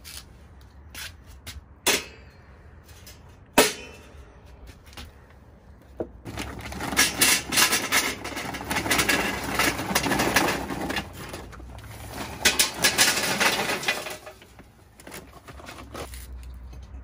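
A few sharp knocks, then charcoal briquettes pouring from a bag into a metal chimney starter: a dense clattering rattle from about six seconds in that lasts some eight seconds and then dies down.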